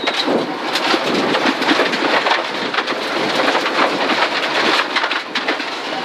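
Gravel and stones pelting the underside and wheel arches of a Mitsubishi rally car at speed on a loose gravel stage: a loud, continuous rattle made of many sharp hits.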